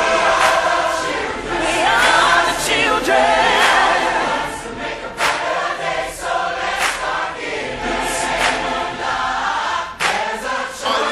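Choir singing over backing music, with a solo voice gliding up and down through runs about two seconds in.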